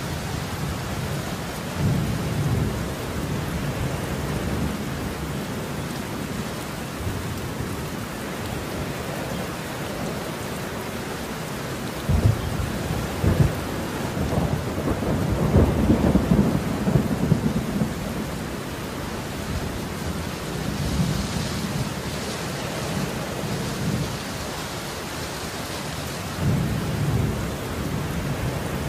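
Thunderstorm: steady rain with repeated low thunder rumbles. About twelve seconds in come two sharp cracks, then the loudest rolling peal, with fainter rumbles after it.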